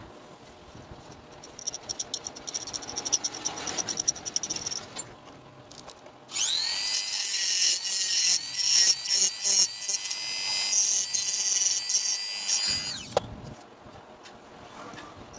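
Electric drill switched on about six seconds in: it spins up with a rising whine, runs steadily for about six seconds, then is switched off and winds down. Before it starts there is light clicking and rattling of handling.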